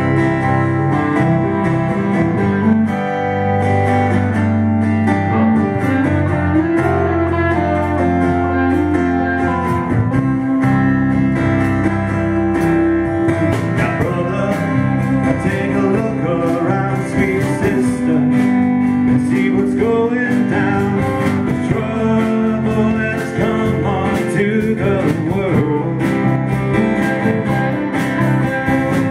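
A four-piece band playing a song live: strummed acoustic guitar, electric guitar, bass guitar and a drum kit, steady and continuous.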